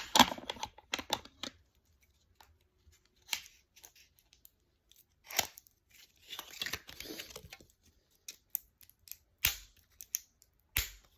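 Small blind-box packaging being opened by hand: scattered sharp clicks and snips, with a longer stretch of tearing and rustling packaging from about six to seven and a half seconds in.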